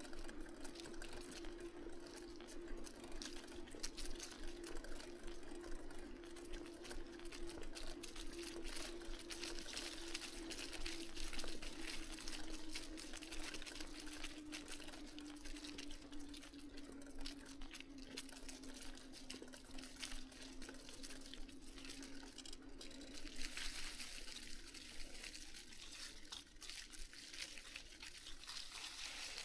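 Bicycle tyres rolling over a paved path strewn with dry fallen leaves: a continuous crackling hiss with many small clicks. A steady hum runs under it, sinks slightly in pitch and fades out about three-quarters of the way through as the bike slows.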